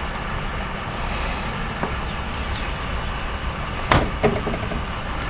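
A single sharp knock about four seconds in, followed by a few lighter knocks, over a steady low background rumble.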